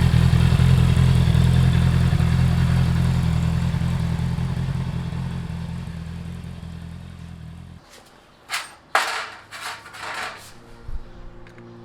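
Honda CBR650R inline-four motorcycle engine idling steadily through its exhaust. It fades away and cuts off about eight seconds in. A few short, sharp knocks follow.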